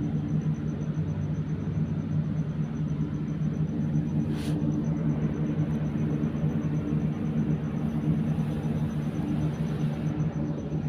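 Steady low machine hum, a motor running without change, with a faint high whine above it and a short hiss about four seconds in.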